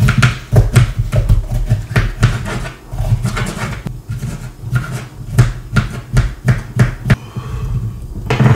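Kitchen knife chopping red bell peppers on a cutting board: quick, uneven chops, a few a second, each a sharp knock with a dull thud from the board.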